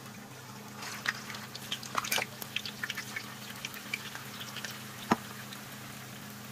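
Hot oil sizzling and crackling in a wok as semolina balls are added to deep-fry, with irregular pops, and one sharp click about five seconds in.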